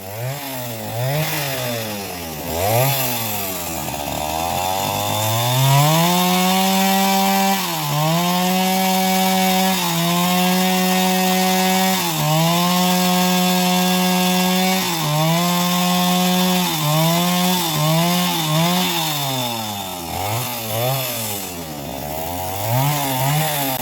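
Two-stroke chainsaw engine revving up and down, then held at high revs for stretches of a few seconds with brief dips while sawing teak. Quick throttle blips rise and fall again near the end.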